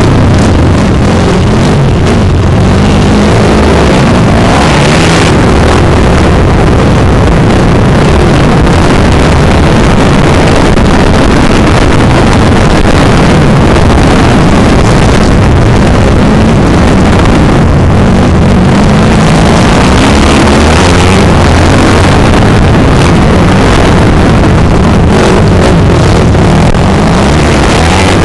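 Loud onboard sound of a motocross dirt bike's engine being ridden hard, its pitch rising and falling with the throttle and gear changes, with wind buffeting the microphone.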